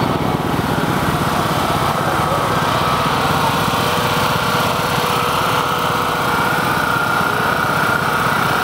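Small engine of a riding lawn tractor running steadily at a constant pace.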